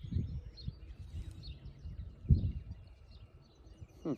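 Wind buffeting the microphone in gusts, with one strong gust about two seconds in, while small birds chirp in the background.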